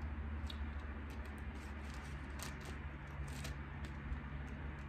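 Faint clicks and rustles of food and packaging being handled and eaten during a mukbang, over a steady low hum.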